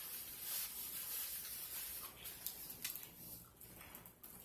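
Close-miked eating of crispy fried chicken wings: a dry, rubbing crunch, densest in the first two seconds, then a few sharp clicks around the middle.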